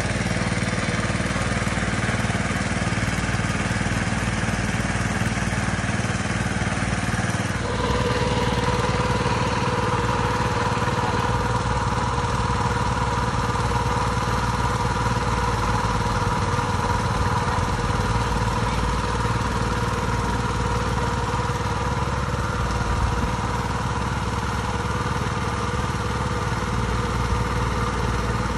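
Small petrol engine of a wheeled water pump running steadily, pumping water out of a pond through a hose. About a quarter of the way in the sound changes abruptly and a steady whine comes in over the engine for a while.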